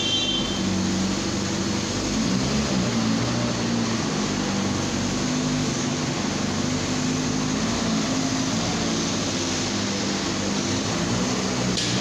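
Steady machine noise: a low hum that wavers and shifts in pitch, over a constant hiss.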